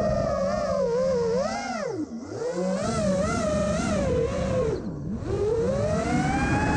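Model airplane's motor and propeller heard from the onboard camera, a whine whose pitch wavers as the throttle works through acrobatics. The pitch drops sharply about two seconds in and again about five seconds in as the throttle is chopped, then climbs back to a higher, steadier pitch.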